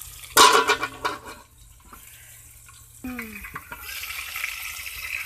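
A metal lid clatters onto a metal cooking pot about half a second in. About three seconds in, a short scraping squeak comes, then a steady sizzle of chicken frying in hot oil with black pepper.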